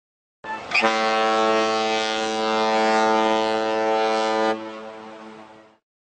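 Boat horn sounding one long, steady blast. It comes in about half a second in, holds for about four seconds, then fades out over about a second.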